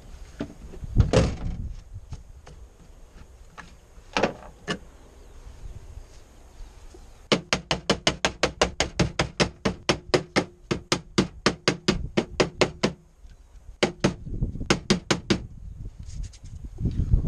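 Rapid sharp knocks, about five a second for several seconds, from a chainsaw's air filter being tapped against a car tailgate to shake the dust out. A couple of single heavier thumps come earlier as tools are moved on the tailgate.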